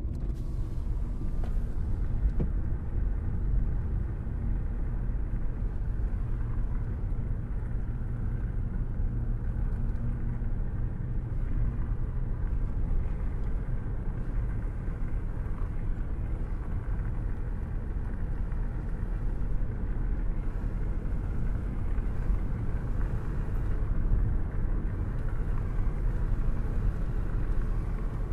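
Car driving along a town road, heard from inside the cabin: a steady low rumble of engine and tyre noise.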